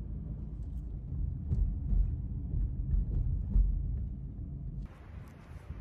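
Low road and engine rumble of a car driving, heard from inside the cabin, swelling a few times. About five seconds in it gives way to a quieter hiss.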